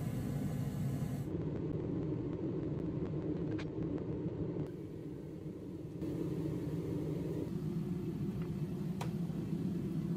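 Steady low rumbling background noise that changes abruptly a few times, with a faint click twice.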